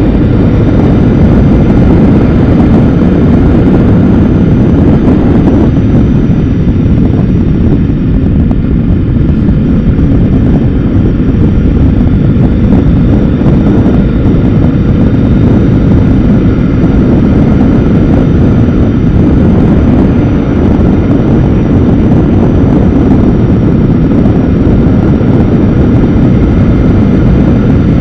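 Motorcycle on the move at road speed: steady, loud wind rush over a bike-mounted camera's microphone with the engine running underneath.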